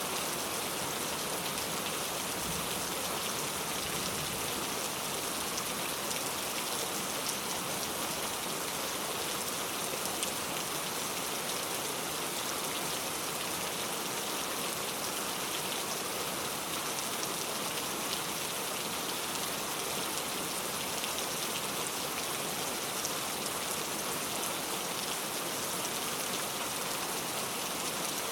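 Heavy rain falling steadily on a road, with no thunder: a dense, even hiss with fine scattered drop patter that holds at one level throughout.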